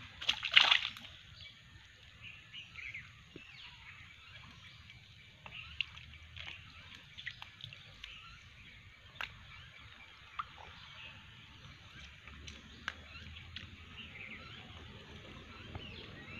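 Shallow stream water splashing as a fish is worked out of a gill net by hand: one loud splash about half a second in, then small drips and sloshes.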